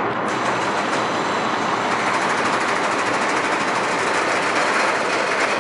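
Roller coaster train running along its steel track, a steady unbroken roar of wheels on rail.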